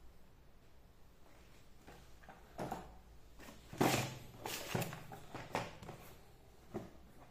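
Cardboard toy box being set down and handled on a hard tiled floor: a few knocks and scuffs, the loudest about four seconds in, after a quiet start.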